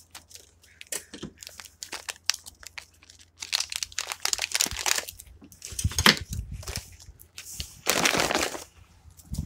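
MRE plastic packaging crinkling and rustling in the hands as a food pouch is handled, in irregular bursts, with a dull bump against the table now and then.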